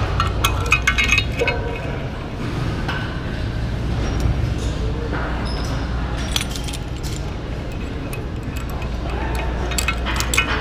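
Metal cable-machine attachments being handled and clipped: a carabiner and a steel row handle clinking and jangling in short clusters, near the start, about six seconds in and again near the end, over a steady low hum.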